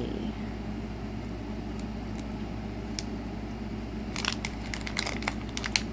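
Packaging crinkling and crackling as hands rummage through a gift bag, a quick run of sharp crackles starting about four seconds in, over a steady low hum.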